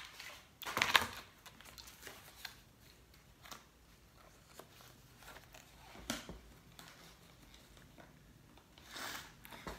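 Paper rustling as folded bills and documents are handled and unfolded, with a louder rustle about a second in and another near the end, and soft paper ticks in between.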